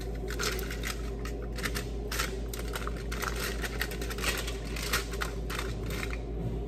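Aluminium foil on a baking pan crinkling and rustling in short, irregular crackles as hands handle and season a raw steak in it.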